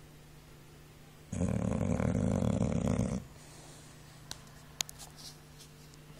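English boxer dog snoring: one long, loud snore about a second in that lasts almost two seconds, followed by a few faint clicks.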